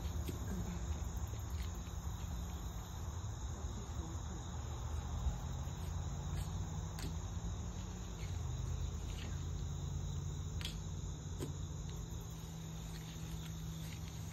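Crickets chirping steadily over a low steady hum, with a few faint clicks scattered through.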